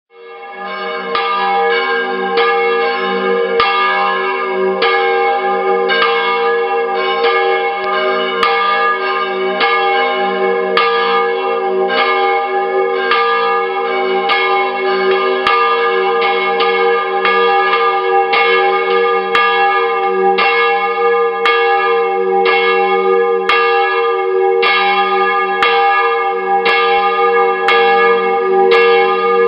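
Church bells pealing in a stone bell tower: repeated strikes, somewhat more than one a second, over the steady hum of the bells ringing on. The sound fades in at the start.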